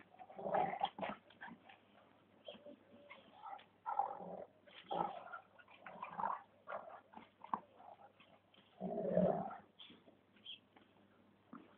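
Two dogs play-fighting, making short bursts of dog noise at irregular intervals; the longest and loudest burst comes about nine seconds in.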